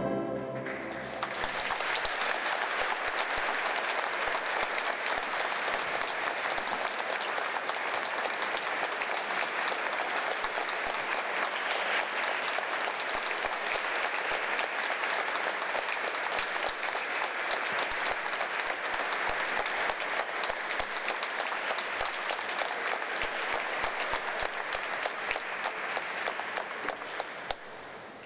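An orchestra's final chord dies away in the first second, then an audience applauds steadily, the clapping thinning out near the end.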